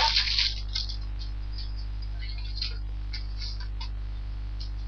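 Scattered short rustles and crinkles of paper and plastic packaging being handled, over a steady low electrical hum.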